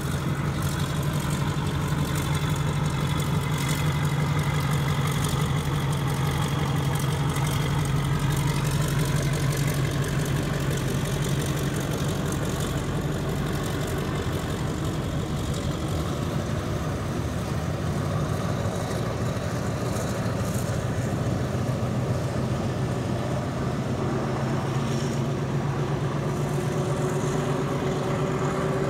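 Alsthom diesel-electric locomotive's engine running under load as it pulls a train out of the station: a steady low drone, its pitch rising a little near the end.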